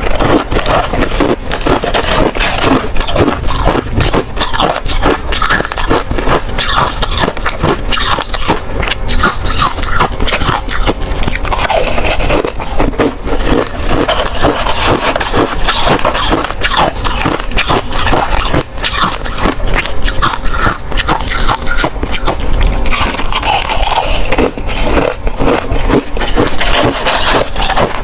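Ice being bitten and chewed close to the microphone: loud, dense, rapid crunching and cracking with no pauses.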